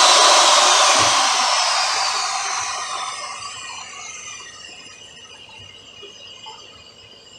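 A motor-driven tool with a steady whirring, blower-like rush, winding down and dying away gradually over the first few seconds.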